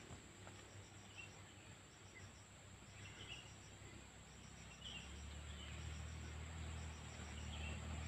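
Quiet outdoor ambience of insects: a steady high drone with repeated runs of rapid ticking pulses, and a few faint short chirps. A low rumble comes up from about five seconds in.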